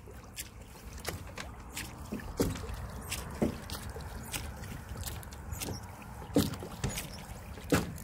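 Small boat being rowed slowly with oars: scattered clicks and knocks from the oars, with a few louder knocks, over a low water noise.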